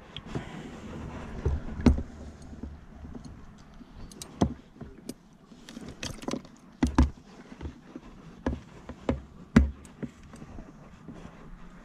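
Irregular knocks and scrapes in a plastic cooler box holding a softshell turtle gripped with large pliers. The loudest knocks come about 2 s in, about 4.5 s in, twice in quick succession near 7 s, and once near 9.5 s.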